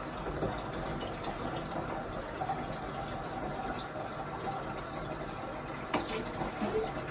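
Steady running, splashing water, with a single sharp knock about six seconds in.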